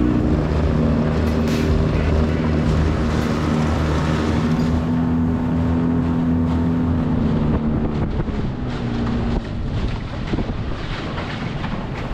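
A boat's motor running steadily, with wind on the microphone. The engine note dies away about nine and a half seconds in, leaving wind and water noise with a few knocks.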